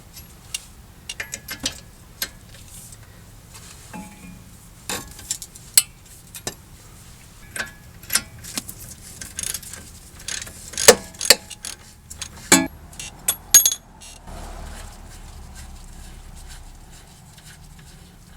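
Hand tools clinking and clanking on metal as a socket and breaker bar are fitted to and worked on the large strut-to-knuckle bolts. There are irregular sharp metallic clicks, with a few louder clanks in the second half and a softer steady noise near the end.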